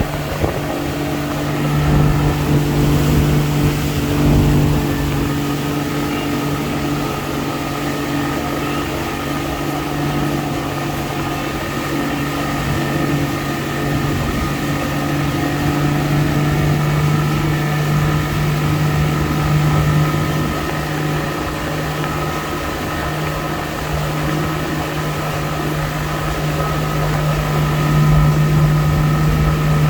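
Motorboat engine running steadily at a constant pitch, with the wash of water and wind around the hull.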